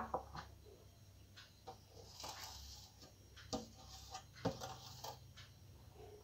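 Faint, scattered taps and clicks of fingers against a metal plate while cooked rice is spread and mixed by hand, with a soft rustle about two seconds in.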